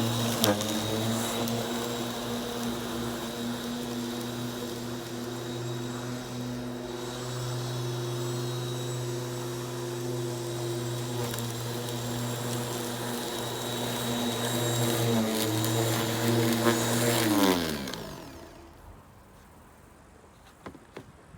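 Ryobi 1300W corded electric lawn mower's motor running with a steady hum, its pitch dipping briefly a couple of times. About 17 seconds in it is switched off and winds down, the pitch falling as it fades.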